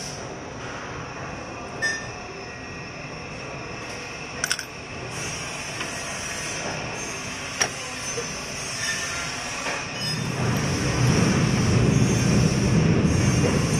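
Steady mechanical hum of factory machinery, with a few sharp metal clicks as the steel change parts of an NJP800 capsule filling machine are handled; a low rumble swells about ten seconds in.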